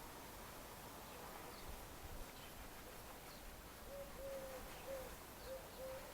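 Faint outdoor bird calls: a run of short, low, hooting notes repeating about twice a second, starting about four seconds in, with faint higher chirps scattered throughout.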